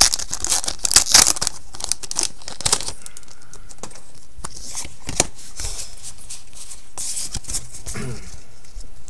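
Foil Pokémon booster pack wrapper crinkling and tearing as it is opened, busiest in the first three seconds. After that comes quieter rustling with a few sharp clicks as the cards are handled.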